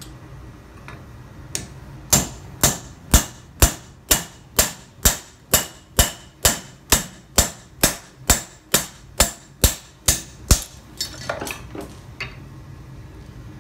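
Hammer blows on the spine of a handmade knife, driving its edge through a half-inch steel bolt on an anvil: about twenty sharp, ringing strikes at roughly two a second, followed by a few lighter knocks.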